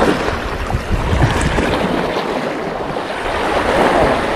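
Small waves washing and breaking against a rocky shore, with wind rumbling on the microphone.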